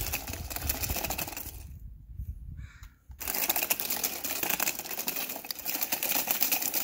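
HuaF RC 4WD amphibious monster truck driving over gravel: its battery-powered drive and tread-paddled wheels grind and crunch through the loose stones. It stops for about a second a couple of seconds in, then sets off again.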